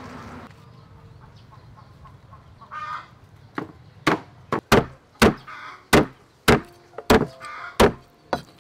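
Cleaver chopping raw chicken on a thick round wooden chopping block: a run of about ten sharp chops, roughly two a second, starting about three and a half seconds in.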